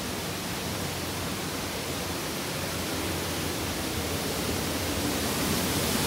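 Steady rushing of Bridal Veil Falls and its creek, growing slowly louder.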